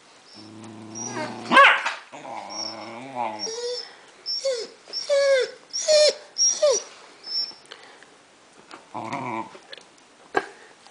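Doberman puppy growling and whining over a bone: a low growl, a sharp yelp, a wavering growl, then a run of about five short cries that fall in pitch, and a brief growl again near the end.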